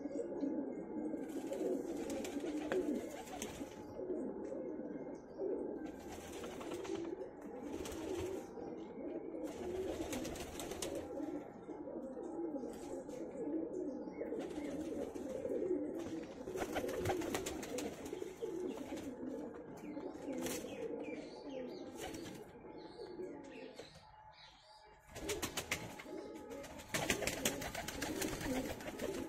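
A flock of white domestic pigeons cooing continuously, many overlapping coos at once, with a brief lull about three-quarters of the way through.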